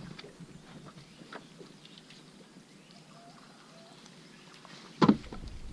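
Mostly quiet, with a few faint short chirps from a bird about three seconds in, then one sudden loud thump near the end.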